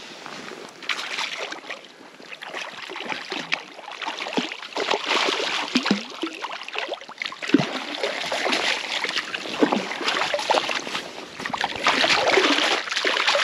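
A hooked trout splashing and thrashing at the water's surface as it is drawn into a landing net, in irregular splashes that come loudest near the end.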